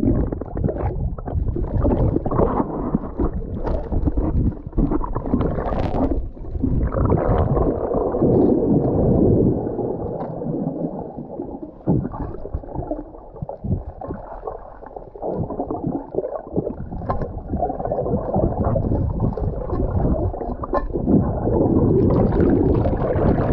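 Water gurgling and sloshing around a camera held at or in the sea surface while swimming, muffled, with scattered knocks and clicks.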